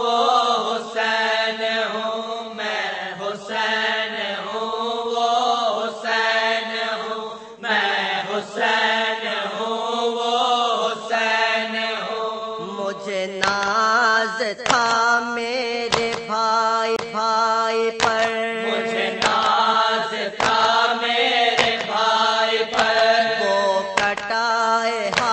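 Voices chanting a Dawoodi Bohra marsiya, an Urdu elegy for Imam Husain, over a steadily held note. From about halfway, sharp beats keep time roughly once a second.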